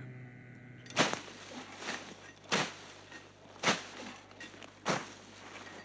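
Four short, sharp clicks about a second apart, over a low steady hum.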